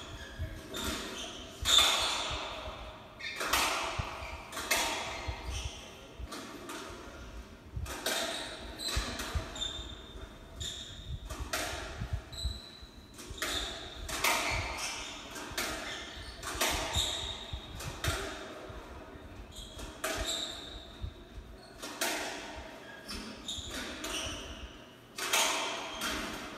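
Doubles squash rally: the ball cracking off rackets and the front wall every second or two, each hit echoing around the court, with short shoe squeaks on the wooden floor in between. It is heard through a TV's speaker.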